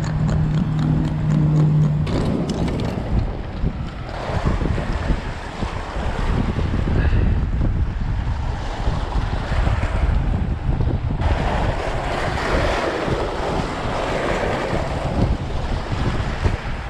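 Wind buffeting the microphone over choppy sea water washing against shoreline rocks, with a low steady hum in the first two seconds.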